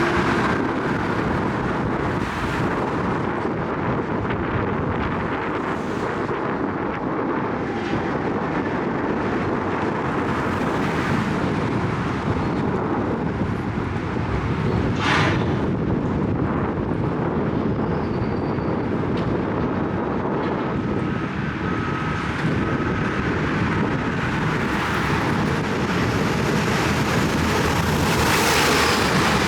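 Heavy construction machinery running steadily at a work site, a loud continuous diesel engine noise, with faint evenly spaced beeps about two-thirds of the way through.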